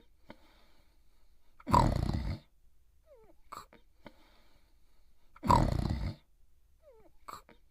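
A cartoon dog snoring: two loud snores about four seconds apart, each followed by a short falling whistle and a small smacking sound.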